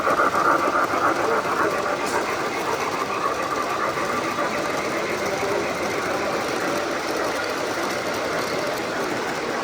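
Model train running on a layout track, a steady whirring rattle of motor and wheels that slowly fades, with chatter in the hall underneath.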